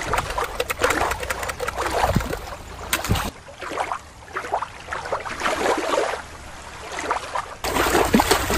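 Shallow water lapping and trickling at a rocky shore, with small splashes. About three seconds in it gives way to a quieter, duller water sound for about four seconds. Near the end a toy shark splashes into the water.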